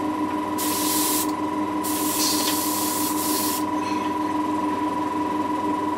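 Airbrush hissing in two bursts of air, a short one about half a second in and a longer one of nearly two seconds, over a steady hum.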